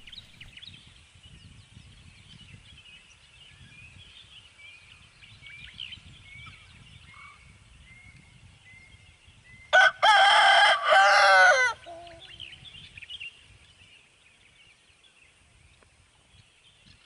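A rooster crows once, loud and about two seconds long, about ten seconds in. Before it a small bird sings a run of short high chirps that fall in pitch.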